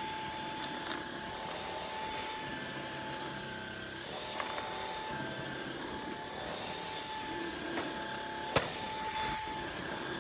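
Cordless vacuum cleaner running with a steady high motor whine while picking up spilled rice. A sharp click comes about three-quarters of the way in, followed by a short hiss.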